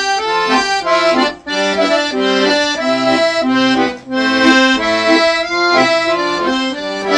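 Background music: a melody of short, quick notes over a steady accompaniment, with brief breaks about one and a half and four seconds in.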